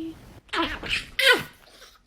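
A sneeze: two short breathy intakes, then a sharp loud burst just past a second in that trails off in a falling tone.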